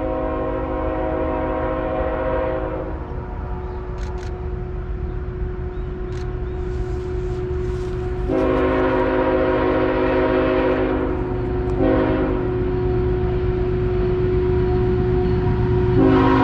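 Freight diesel locomotive's air horn sounding the grade-crossing signal as the train approaches: a long chord blast ending about three seconds in, a second long blast, a short one, and a final long blast starting near the end. A low rumble under the horn grows louder as the train nears.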